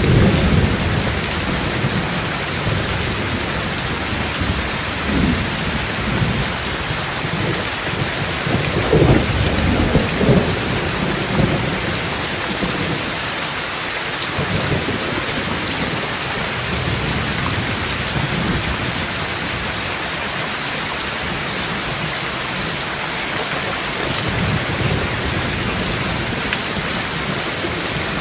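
Heavy rain falling steadily, with rolling thunder rumbling underneath, loudest in the first half and again briefly about 9 to 10 seconds in, then easing off.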